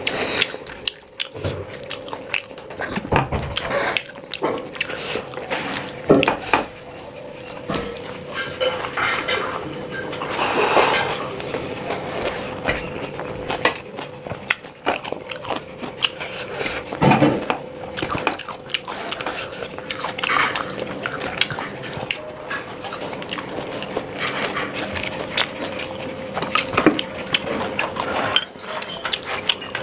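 Close-miked hand eating: fingers scraping and gathering rice on a stainless steel plate, with chewing and mouth sounds, over a faint steady hum.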